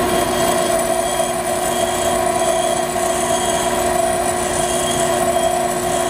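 Pedestal grinder with a high-speed steel fly cutter tool bit held against its spinning wheel: a steady grinding whine over the motor's hum while the bit's front face is ground flat.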